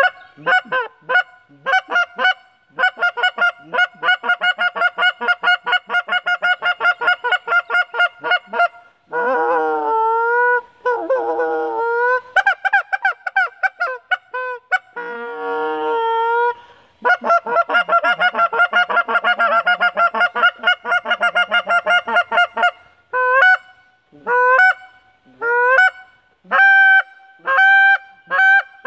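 Molt Gear EX3 X Series goose call blown by mouth, sounding like a Canada goose. It goes through fast runs of short clipped clucks, stretches of drawn-out moaning notes that bend in pitch, and single honks with a sharp break in pitch, spaced apart near the end.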